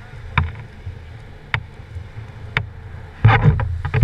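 Wind and handling rumble on a surfboard-mounted GoPro's microphone as the board is carried, with three sharp knocks about a second apart, then a louder rushing noise near the end.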